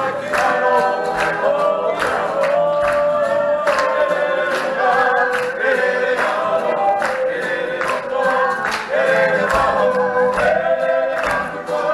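A group of voices singing a song together in harmony over a steady beat.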